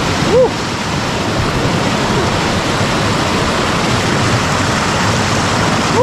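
River water rushing steadily over rocks in a loud, even wash. A short voice-like sound rises and falls about half a second in.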